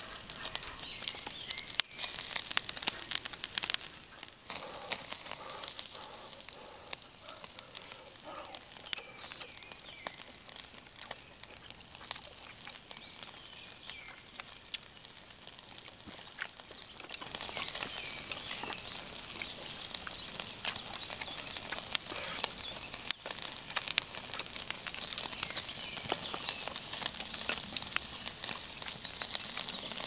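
Beef sizzling over a charcoal grill, with many sharp crackles and pops from the fat; the sizzle grows louder about halfway through.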